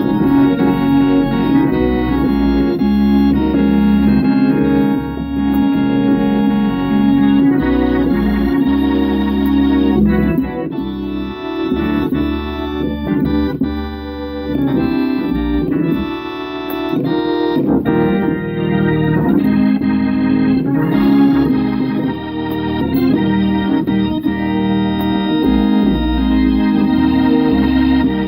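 Organ playing gospel music: full held chords over a deep, moving bass line.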